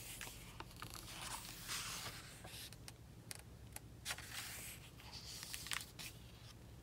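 Faint rustling of paper pages as a book is leafed through and turned over in the hands, with a few light clicks and taps from handling it.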